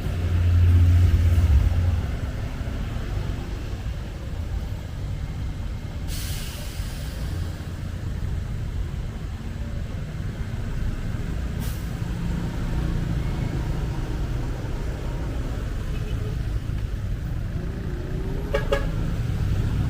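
Tour bus engine running with a steady low rumble. About six seconds in, air brakes let out a hiss lasting over a second, and a shorter hiss follows near twelve seconds.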